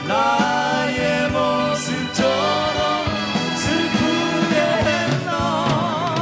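Two male singers singing a Korean pop ballad together over a backing band with a steady drum beat; held notes with vibrato near the end.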